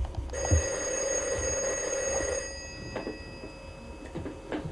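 Rotary telephone's bell ringing once, a single burst of about two seconds, the ring of an incoming call. A couple of faint clicks follow near the end.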